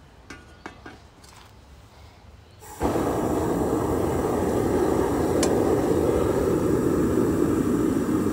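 A few light metal clinks, then about three seconds in the home-built gas-bottle furnace's burner comes on suddenly with a loud, steady rushing noise that keeps running as the furnace is fired to melt the copper.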